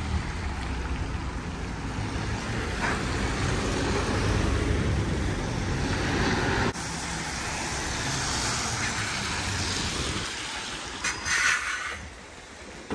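Road traffic of cars and a city bus passing on a wet road: low engine rumble and tyres hissing on wet asphalt. The rumble drops away suddenly about halfway, and a short loud hiss comes near the end.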